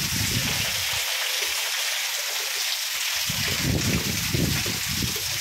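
Torrential rain pouring down onto concrete and roofs, a steady dense hiss, with a low rumble that comes and goes and drops away for a couple of seconds in the middle.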